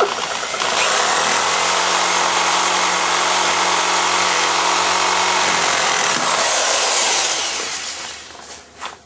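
An electric drill in high gear spinning an R134a refrigerant compressor's shaft at about 3,000 rpm: a loud, steady whir that starts at once. About six seconds in, the steady tone breaks off and a falling whine follows as it winds down, which the owner takes for the compressor shaft failing.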